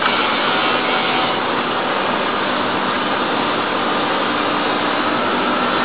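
Steady, unchanging mechanical noise, like a motor or fan running, with a faint hum in it.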